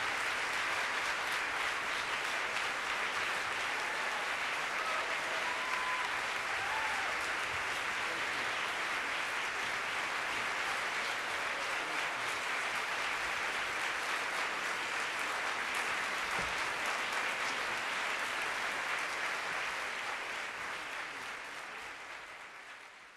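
Audience applauding steadily, with a few faint calls from the crowd about five seconds in, fading out over the last few seconds.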